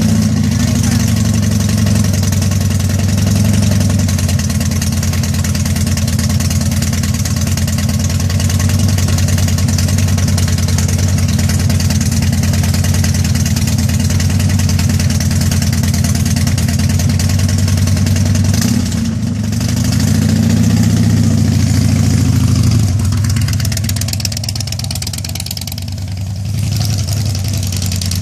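Harley-Davidson V-twin motorcycle engine idling just after being started, its speed swelling and falling briefly at the start and again about two-thirds of the way through. It runs more quietly near the end.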